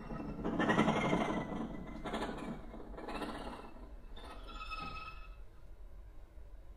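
Violin bowed with extended technique: noisy, scratchy bow strokes, the strongest from about half a second to two seconds in and another around three seconds, then a thin, high pitched tone from about four to five seconds in.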